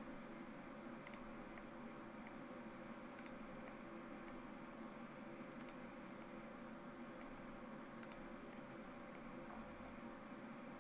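Computer mouse clicking: about twenty faint, sharp single clicks at irregular intervals, over a low steady electrical hum.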